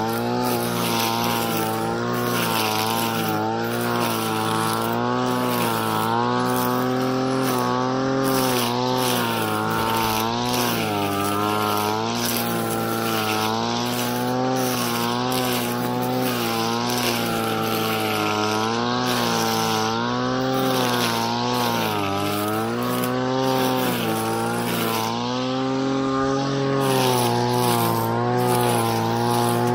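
Brush cutter's small petrol engine running at high revs, its pitch dipping and recovering over and over as the saw-toothed metal blade bogs in dense grass and weeds. Over it runs a grainy hiss of grass being cut and thrown.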